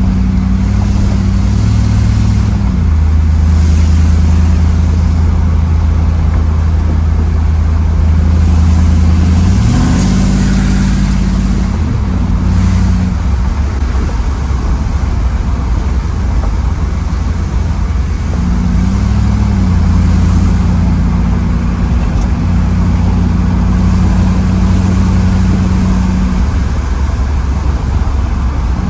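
1992 Camaro Z28's V8 engine heard from inside the cabin while driving, running smoothly on its newly replaced ignition parts. The engine note holds steady and then shifts up or down several times with the throttle, with the biggest climb in pitch about ten seconds in.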